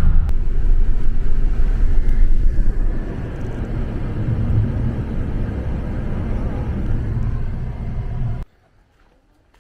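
Road and engine noise heard inside a moving car's cabin: a steady low rumble. It gets a little quieter about three seconds in, as the car goes from motorway to a slower country road, and cuts off abruptly near the end.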